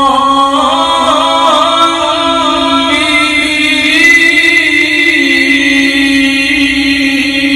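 A man reciting the Quran in the melodic tajweed style, holding one long unbroken note with small ornamental turns in the pitch.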